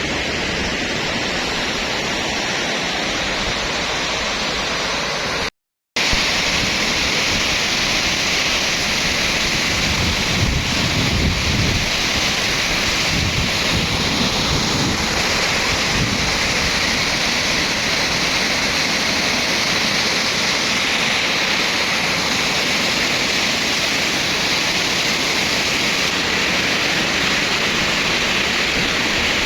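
Floodwater rushing down a river channel after heavy rain: a loud, steady rush of water. It cuts out completely for about half a second some six seconds in, then carries on unchanged.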